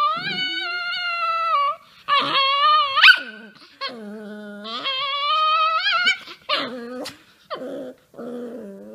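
A small dog howling, coaxed to 'sing', in long, wavering howls with a quick rising yelp about three seconds in; toward the end the howls drop lower and turn into shorter moans.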